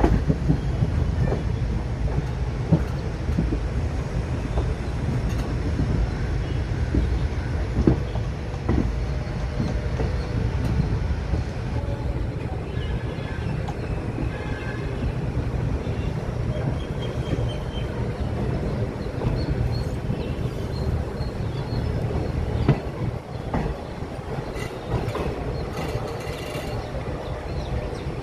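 Passenger express train running into a station, coaches rolling past with a steady rumble, wheels clacking over rail joints and brief squeals from the wheels. The rumble eases a little near the end as the train slows.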